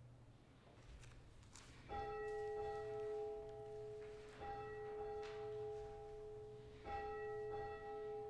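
A bell struck three times, about two and a half seconds apart, each strike ringing on with several steady, clear tones that overlap the next strike.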